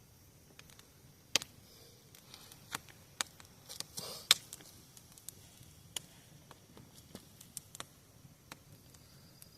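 Wood bonfire crackling: irregular sharp pops and snaps, about a dozen, the loudest about a second and a half in and near the middle.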